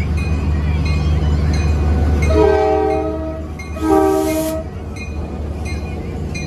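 Norfolk Southern EMD GP38-2 diesel locomotive passing close by, its 16-cylinder two-stroke engine rumbling, then sounding its chorded air horn in two blasts, the second shorter and louder. A bell dings steadily in the background.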